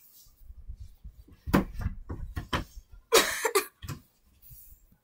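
Handling noise: soft thumps, knocks and rustling as plush toys are picked up and moved about on a rug, with a short noisy burst a little after three seconds.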